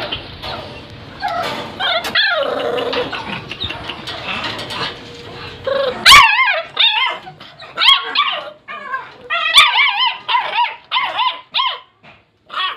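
American bully puppies yelping and whining: a quick string of short, high, wavering cries from about six seconds in, after a noisier stretch with a few scattered calls.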